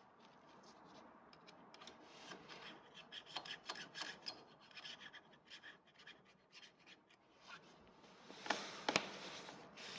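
Hand scraping and rubbing on brake caliper parts, as in cleaning the slide pins: a run of short scratchy strokes, with two louder scrapes near the end.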